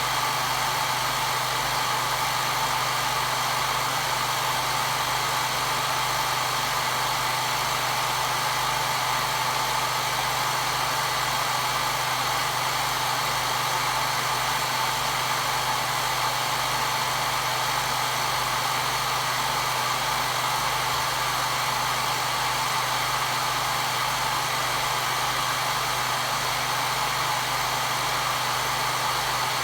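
Hair dryer running steadily: an unchanging rush of air over a low motor hum.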